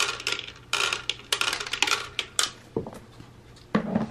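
Dry cat kibble poured into a plastic Catit Senses 2.0 Food Tree, the pieces clattering and rattling onto its plastic tiers. The clatter comes in several quick rushes and thins to a few scattered clicks after about two and a half seconds.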